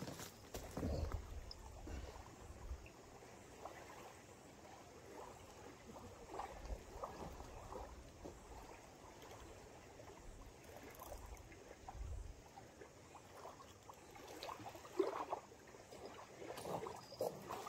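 Small waves lapping and trickling on a shingle beach. A few low bumps of wind on the microphone, in the first few seconds and again about twelve seconds in.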